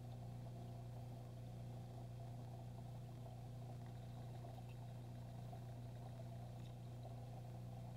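Faint, steady low hum of an aquarium pump, an even drone with a light hiss over it.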